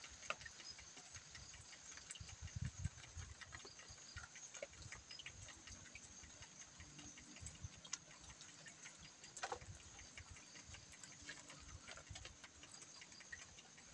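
Near silence, with faint scattered clicks and a few soft low knocks, the small sounds of people eating grilled chicken by hand. A faint steady high hiss runs underneath.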